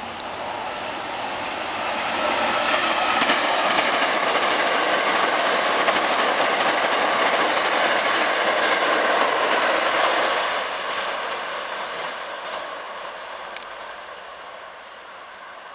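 Hankyu 3300 series seven-car electric train passing through a station at speed without stopping. The sound builds over the first two seconds, stays loud as the cars go by, and fades away from about ten seconds in as the train moves off.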